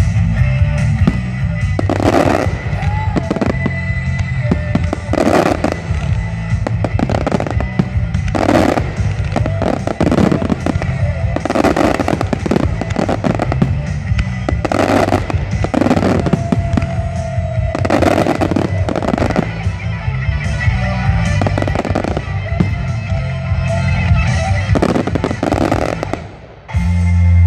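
Aerial firework shells bursting, a sharp bang every one to two seconds, over steady background music. The bangs stop near the end and the music carries on louder.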